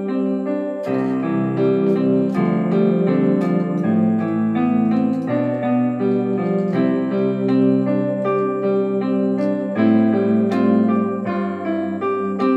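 Piano, likely an electric or digital piano, playing a slow ballad in held chords over a low bass line, with the chords changing every second or two and no singing.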